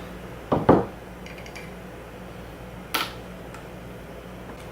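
Kinetic (inertia) bullet-puller hammer being struck against a hard block to pull the bullet from a 7.62x54R steel-case cartridge. Two quick heavy knocks come about half a second in, then a single sharper knock about three seconds in.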